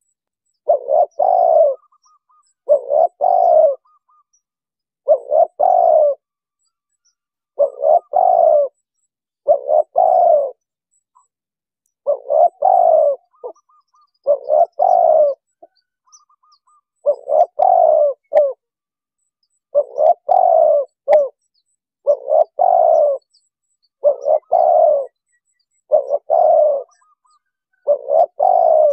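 Spotted dove cooing over and over: a short phrase of low coos about every two seconds, thirteen or so in a row. A few faint high chirps from other birds are heard in the gaps.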